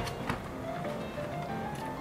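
Soft background music with a plain, stepping melody, and a light click shortly after the start.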